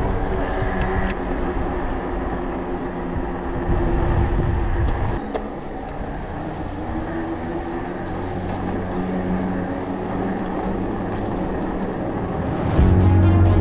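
Wind buffeting a bike-mounted action camera and tyres rolling on asphalt while an electric mountain bike rides along a road, with a gust swelling about four seconds in. Music comes in loudly near the end.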